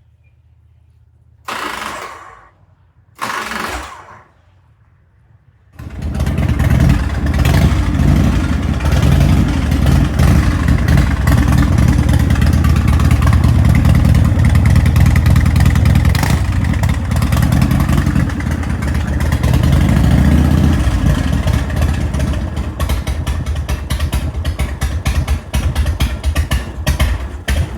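1988 Harley-Davidson Softail Custom's Evolution V-twin started on its new starter relay about six seconds in, after two short noises, then running loud and steady; over the last few seconds it runs less evenly, its level rising and falling. The start shows the replaced starter relay working.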